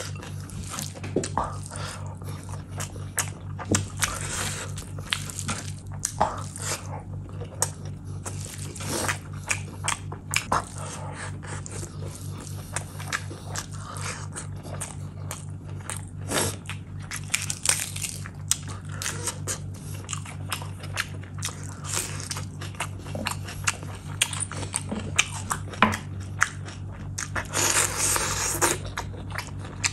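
Close-miked eating of mutton curry with rice by hand: wet chewing, lip smacks and mouth clicks throughout. Near the end comes a louder wet sucking burst as a lemon wedge is bitten and sucked.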